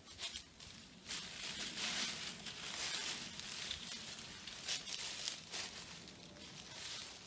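Dry leaves, twigs and branches rustling and crackling irregularly as someone pushes through dense brush and steps on leaf litter.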